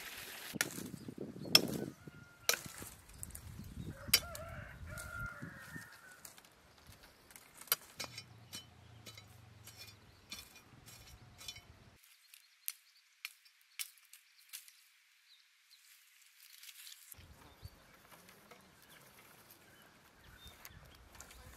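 A rooster crowing and chickens clucking, with scattered sharp snaps and cracks of dry twigs and branches being handled.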